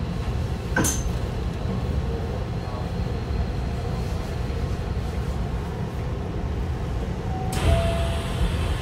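Hankyu 1000 series electric train running at speed, heard from inside the car: a steady low rumble of wheels on rail. A sharp click comes about a second in, and a louder rush of noise near the end.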